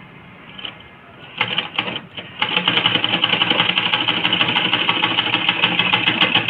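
Old black domestic sewing machine sewing a test seam. It makes a short run of stitches about a second and a half in, then from about two and a half seconds runs steadily at speed with a rapid, even ticking. The machine is failing to form proper stitches, with the upper and lower threads not locking.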